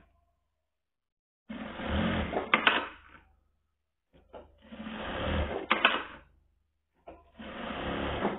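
Automatic single-needle lockstitch sewing machine running in three short bursts, each speeding up and ending in a sharp click. It is sewing test seams with a spring now fitted in the bobbin case to stop the bobbin over-spinning, and it catches every stitch.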